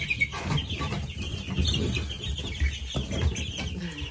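A brooder full of nearly three-week-old chicks and ducklings, with many short, high peeps and chirps overlapping.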